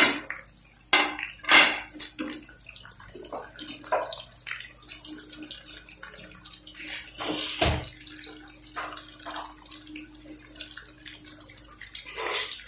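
Chopped tomatoes, onions and green chillies sizzling in hot oil in a kadai, with scattered crackles and pops. There is a louder thump about seven and a half seconds in.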